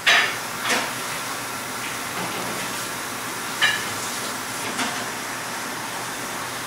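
Steady background hiss of a commercial kitchen, with a few short light clinks of metal tweezers against a china plate as a dessert is plated.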